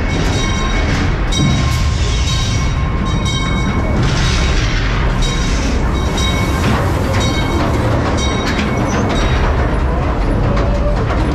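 Mine-ride train of open ore cars rolling on its track, a loud steady rumble and clatter, with recurring high-pitched tones that come and go.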